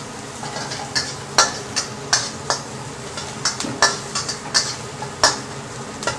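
A metal spatula scrapes and taps against a wok, stirring minced garlic and dried shrimp frying in oil until fragrant. There are irregular sharp scrapes about every half second to second over a steady low sizzle.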